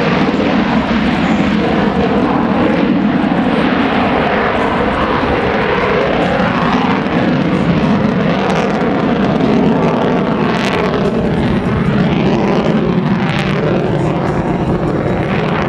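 F-35A Lightning II's F135 turbofan engine at high power as the jet climbs away: a loud, steady jet noise, with a few short crackles in the second half.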